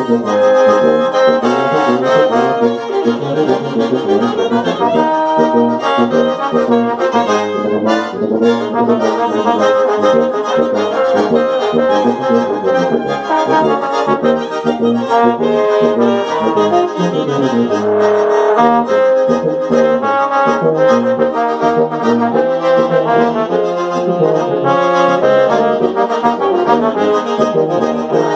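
A small ensemble of saxophone, trombone, piano accordion and tuba playing a tune together in sustained, chordal lines, the tuba carrying the bass.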